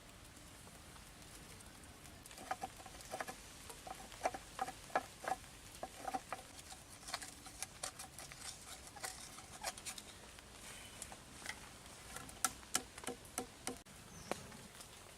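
A run of light, irregular clicks and taps, some in quick clusters, from hard small objects knocking or being handled.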